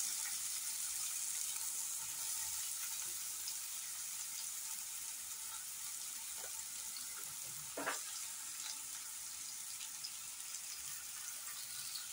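Finely chopped onions sizzling in hot oil with cumin seeds in a steel kadai as they are stirred: a steady hiss that slowly dies down, with one short knock about eight seconds in.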